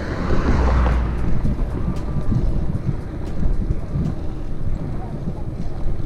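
Wind buffeting the microphone of a camera carried on a moving mountain bike: a steady rumbling rush, with a stronger gust just under a second in.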